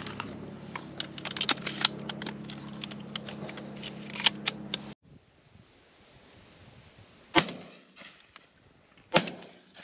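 A steady low hum with scattered small clicks, then two shotgun shots about two seconds apart in the second half, each with a short echo.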